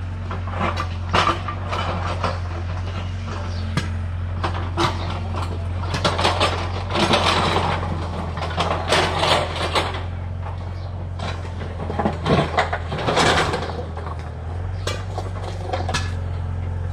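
Hyundai wheeled excavator's diesel engine running steadily, with repeated clatter and scraping of loose stones and broken brick being dug and shifted.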